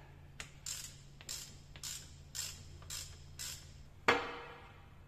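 Ratchet wrench backing out the rear differential drain plug: about six short ratcheting strokes roughly half a second apart. About four seconds in there is a sharp metallic clank that rings briefly.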